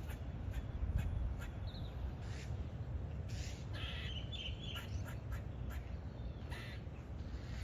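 Short animal calls, several in a quick run around the middle and one more near the end, over a steady low rumble.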